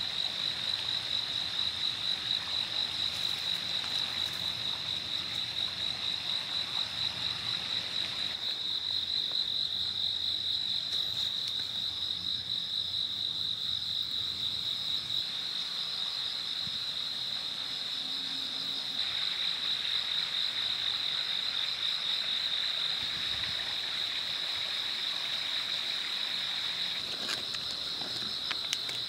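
Night insects, crickets by the sound of it, chirping in a steady high-pitched trill that carries on without a break.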